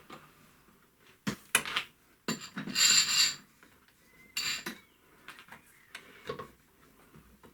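Metal-on-metal clinks and scrapes from handling parts at a milling machine vise: a couple of sharp knocks, then a longer scrape with a ringing metallic note about two to three seconds in, another short scrape a little later, and faint ticks.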